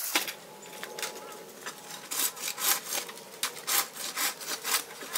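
Hand saw cutting through wood in quick back-and-forth strokes, about three a second.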